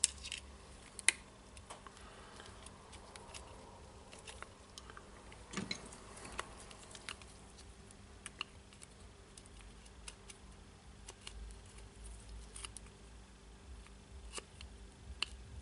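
Scattered light clicks and taps of a small screwdriver tip and plastic parts as an LED light and its wire connector are pressed into a Milwaukee M18 FID2 impact driver's red plastic housing, the sharpest click about a second in.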